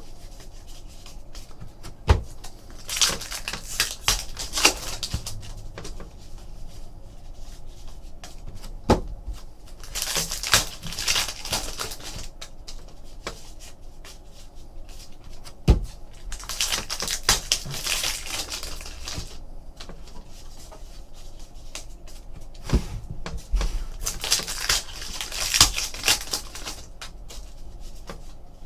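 Trading cards and their wrappers or sleeves being handled on a table: four bouts of crinkly rustling about seven seconds apart, with scattered sharp clicks and taps in between.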